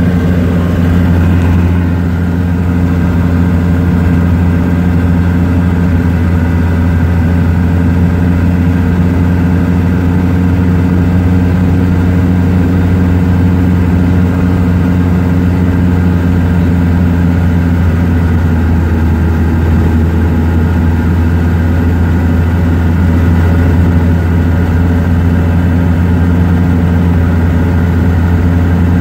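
Thiokol 1404 Imp snowcat's engine running steadily as it drives through deep snow, heard from inside the cab as a loud, even, low drone.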